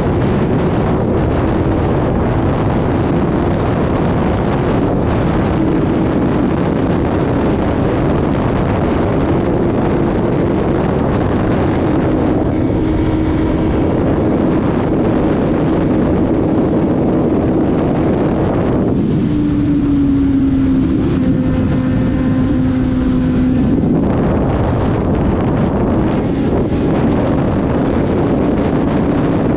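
Kawasaki Z750 inline-four engine running steadily on the move, with heavy wind rush over the microphone. For about five seconds past the middle the wind drops away and the engine note settles a little lower, then both pick up again.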